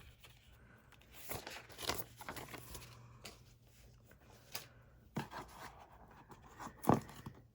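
Cardboard and paper packaging being handled: scattered rustles and a few sharp taps and clicks, the loudest tap near the end.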